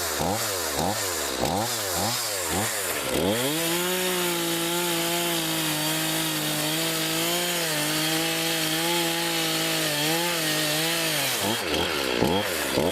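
Homelite chainsaw blipped up and down in quick surges, about two a second. About three seconds in it is held at a steady high speed for several seconds with slight wobbles, then goes back to quick revving near the end.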